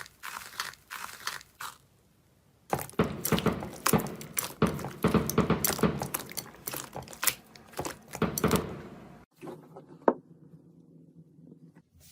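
Slime being squeezed and pressed by hand, making a dense run of crackles and pops. There is a short pause about two seconds in, then a sudden cut about nine seconds in, after which only sparser, softer sounds follow.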